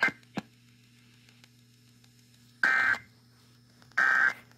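Emergency Alert System end-of-message signal: two short bursts of digital data tones (the SAME "NNNN" code) a little over a second apart, closing the test broadcast. Two sharp clicks come at the start, over a faint steady low hum.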